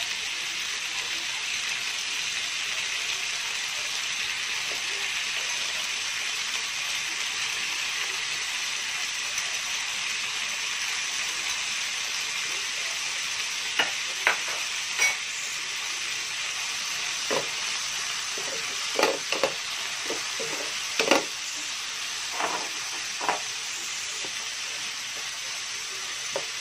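Sliced onion, carrot, red bell pepper and pineapple tidbits sizzling in oil in a non-stick frying pan, a steady hiss. In the second half a series of short light knocks sounds over the sizzle.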